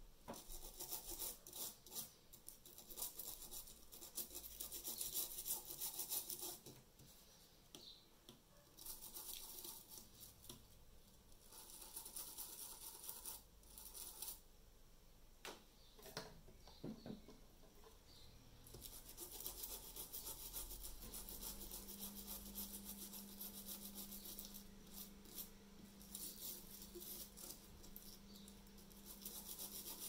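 Flux residue being scrubbed off a laptop circuit board around a freshly soldered M.2 SSD connector, in stretches of quick rubbing strokes with short pauses between. A faint steady hum comes in about two-thirds of the way through.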